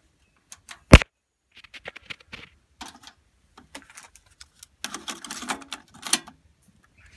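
Mechanical clicks and clunks from hands operating a Technics RS-TR232 double cassette deck. There is a sharp clack about a second in, then scattered light clicks. Near the end comes a busier run of clicking and rattling as the Deck 2 cassette door and its cassette are handled.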